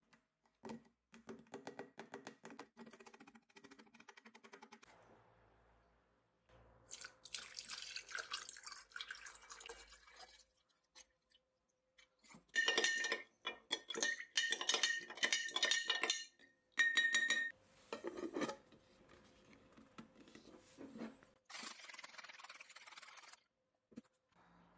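Ground shellac tapped out of a grinder cup into a glass jar with quick light clicks, then liquid poured in. After that comes a rapid run of clinks that leave the glass jar ringing as the mixture is stirred: the loudest part.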